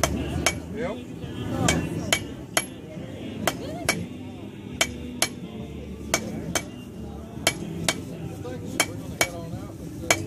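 Blacksmith's hammer striking metal on an anvil in a forging demonstration, about fifteen sharp ringing blows, often in quick pairs about half a second apart.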